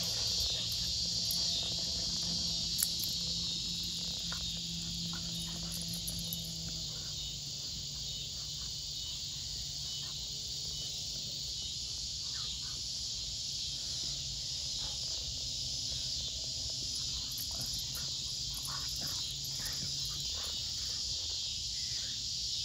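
Steady chorus of insects, a continuous high buzz, over a faint low hum. Scattered short huffs and scuffles come from two dogs play-wrestling on grass.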